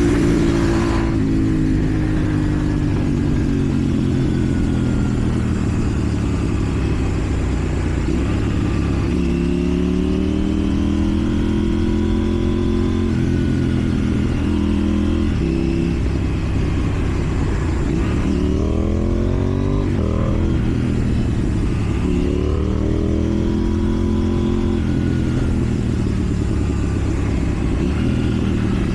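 KTM Duke 790's parallel-twin engine through a slip-on exhaust, running loudly under way, with the pitch climbing in several pulls of acceleration, around nine, eighteen and twenty-two seconds in, and dropping between them as it shifts or eases off.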